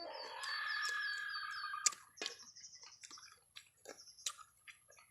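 Crunching and clicking of raw, live small crab shells being chewed: sharp, scattered clicks and crackles. For the first two seconds a bird calls over it, with a sustained note and a quick run of high chirps.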